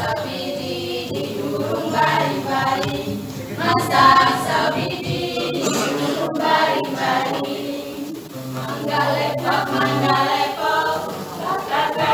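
Small choir singing a song, several voices together.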